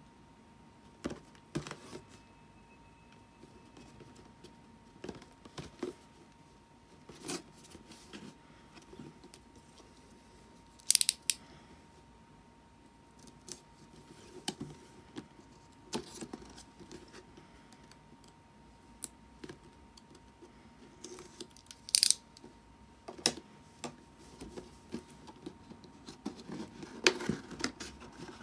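Boxed prize figure being unboxed by hand: scattered taps, clicks and rustles of cardboard and plastic packaging, with two short, sharp, louder noises about eleven and twenty-two seconds in. A faint steady hum sits underneath.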